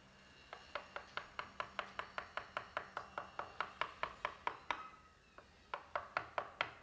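A mallet tapping a wood-carving chisel into a wooden panel in quick, even strokes, about five a second. The strokes stop for about a second near the end, then start again.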